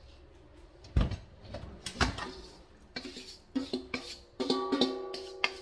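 A spoon knocking and scraping against a stainless steel mixing bowl as sliced peaches slide out into a pot: two sharp knocks about a second apart, then a cluster of clicks. Background music with held notes comes in a little past halfway.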